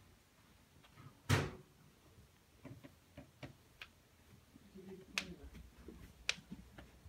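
An interior door being opened, with one sharp knock about a second in, followed by a scattered series of light clicks and taps.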